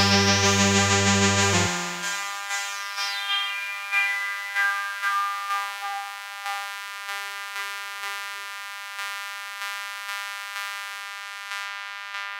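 Electronic synthesizer music: a full mix with bass and a rising filter sweep cuts away under two seconds in, leaving a sustained high synth chord with soft repeating notes about twice a second.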